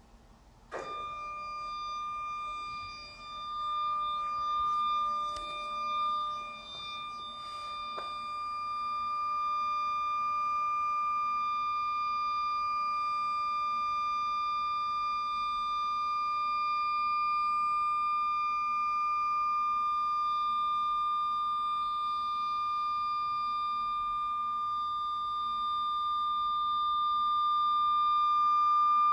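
Stepper-motor drive of a Cruse CS ST RD 185 planetary scanner's synchronized table. About a second in, the pitch sweeps up quickly as the drive comes up to speed, then settles into a steady high whine for the continuous scan.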